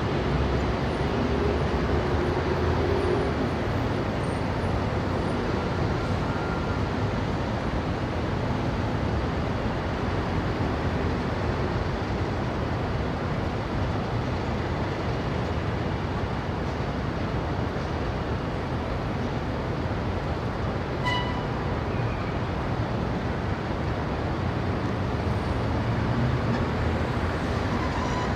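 Steady city street traffic: cars, motorbikes and auto-rickshaws running and passing, a continuous dense rumble. A short high beep sounds once, about three quarters of the way through.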